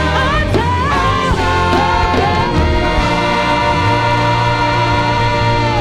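Women's gospel worship group singing a praise song with band accompaniment, a long held note running through the second half.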